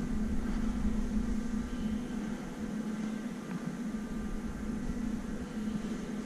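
Steady mechanical hum with a low droning pitch and faint higher tones, over a low rumble that weakens about halfway through.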